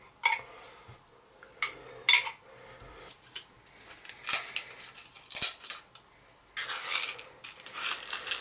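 Spoon clinking and scraping against a saucepan as tomato paste is spooned in: a string of separate sharp clinks and knocks, then a couple of longer scraping stretches near the end.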